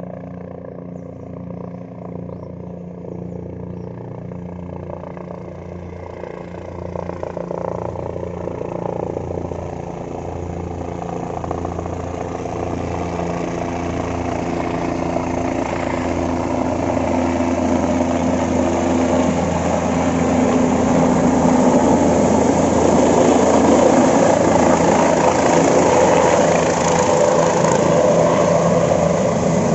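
Helicopter engine and rotor running steadily with a low pulsing beat, growing gradually louder throughout.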